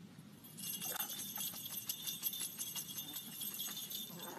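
Small bells jingling rapidly and continuously, starting about half a second in.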